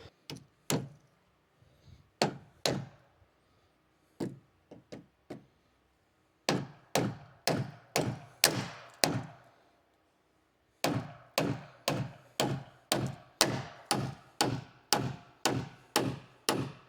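Hammer blows on wood. A few scattered strikes come first, then two runs of steady blows about two a second, as when driving nails into a wooden board.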